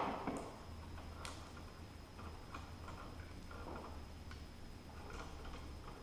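Faint scattered clicks and ticks of small-gauge electrical wires and wire connectors being handled and joined at an open wall switch box, with one sharp click right at the start.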